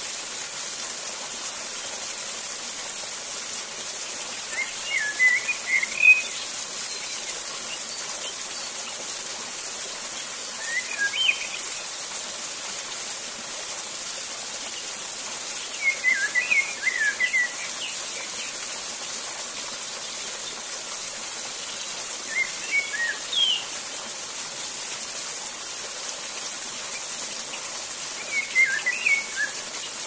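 Steady rushing of a waterfall, with a songbird singing short phrases about every six seconds, five times over.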